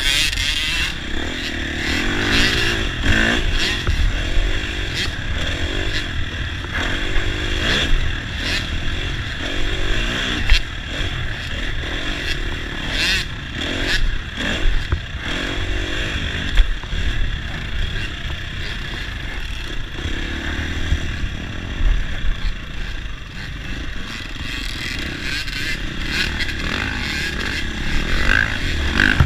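Dirt bike engine revving up and down continuously while riding a motocross track, heard close from the onboard camera, with a few sharp knocks mixed in.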